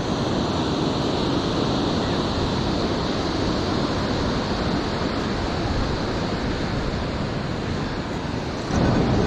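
Surf washing onto a beach, a steady rushing noise with wind on the microphone; it swells louder near the end.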